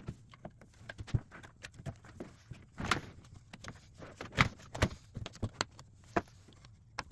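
Irregular clicks and knocks of hands working clamps and a hot steam-bent walnut strip against a wooden bowl, in quick succession with short pauses.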